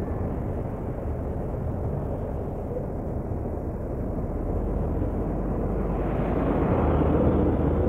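Diesel bus engine rumbling at low speed close by, growing louder about six seconds in as the bus pulls away.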